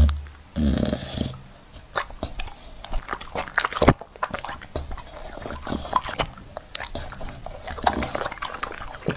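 A dog chewing soft, juicy dragon fruit: wet bites and smacks with crisp little clicks, and a sharper click about four seconds in. A brief low hum sounds in the first second.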